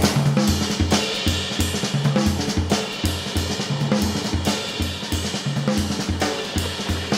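Background music with a steady drum-kit beat: kick drum, snare and cymbals.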